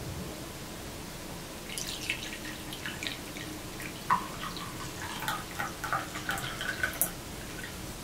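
Coffee poured from a stainless-steel geyser (moka) pot into a ceramic mug, splashing and dripping in irregular spurts from about two seconds in until near the end.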